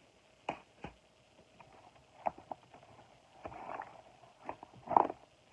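Plastic DVD cases being handled and shuffled: a series of scattered clacks and knocks with a brief rustle partway through, the loudest clack near the end.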